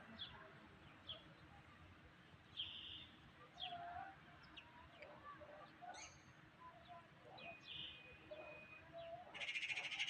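Outdoor ambience of birds chirping intermittently, with scattered short, lower animal calls and a brief buzzy rattle near the end.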